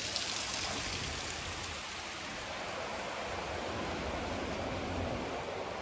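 Creek water rushing steadily over rocks and a small stone spillway.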